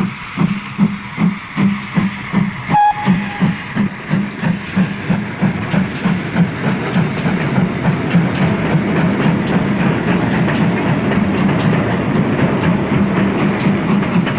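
Four-cylinder steam locomotive No. 6000 King George V getting under way: its exhaust beats start at about three a second and quicken until they run together into a continuous exhaust sound as it gathers speed. A short whistle note sounds about three seconds in.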